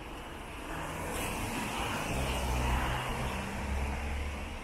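A car passing close by on a wet road, its tyres hissing on the wet asphalt. The hiss swells for a couple of seconds, peaks just past the middle and fades.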